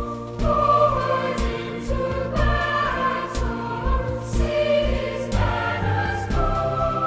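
A choir singing with instrumental accompaniment, in held notes that change about every second over a low bass line.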